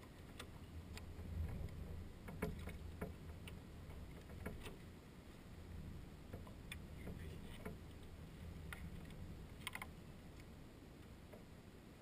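Faint low rumble of wind on the microphone, with scattered light clicks and taps as hands work on a Traxxas Slash RC car; the clicks come irregularly, a little louder about two seconds in.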